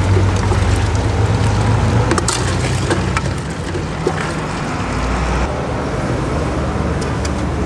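Street traffic noise: a steady low engine rumble under a general hum of the street, with a few light clicks.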